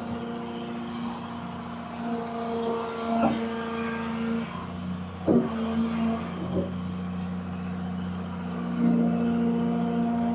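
Old excavator's diesel engine running steadily, its drone shifting in pitch as the machine works, with a few sharp metal clanks.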